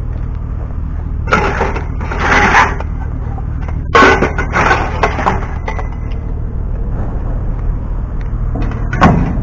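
Scrap metal pipes and a corrugated sheet-metal panel scraping and clattering as they are picked up and handled, in two noisy bursts a couple of seconds apart, with more clatter near the end, over a steady low rumble.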